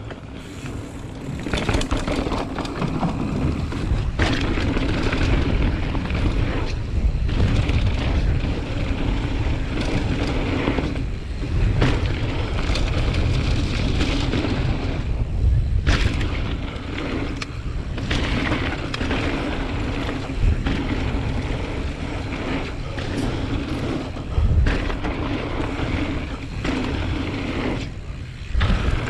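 Mountain bike riding fast down a dirt trail: tyres rolling and rattling over the ground, with wind rumbling on the handlebar-mounted camera's microphone. A few sharp knocks and several brief dips in the noise.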